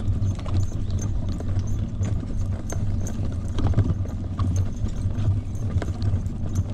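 Walking on a paved sidewalk: irregular footstep clicks over a steady low rumble.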